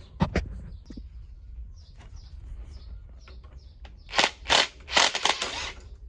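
Hand tools being handled while working on a bicycle's rear derailleur bolt: two sharp clicks at the start, faint scattered ticks, then several loud rattling, scraping bursts in the last two seconds.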